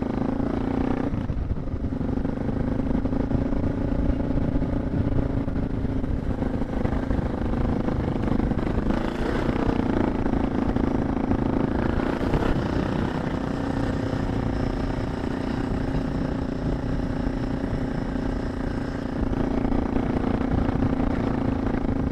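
Suzuki DR650's single-cylinder engine running steadily under load on a climbing ride, with a rough rumble of wind and track noise beneath the engine note.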